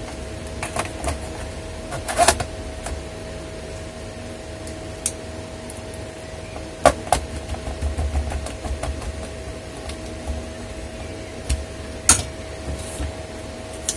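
Scattered sharp clicks and light knocks of plastic and metal being handled as a laptop's DVD drive is fitted into its bay and a tiny screw is driven into the plastic base with a small jeweller's screwdriver, over a steady background hum.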